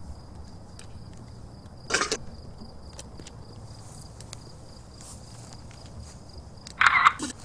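Crickets chirring in one steady high tone, with two brief louder noises, one about two seconds in and one near the end.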